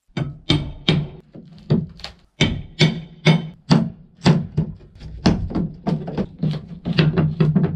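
Hammer blows on wood, about two a second and fairly even, each a hard knock with a low ringing. They are knocking off boards that were nailed onto the wooden posts.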